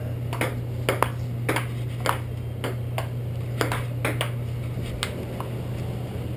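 Table tennis rally: a plastic ping-pong ball clicking off paddles and the table about a dozen times in a quick, uneven rhythm, stopping about five seconds in. A steady low hum runs underneath.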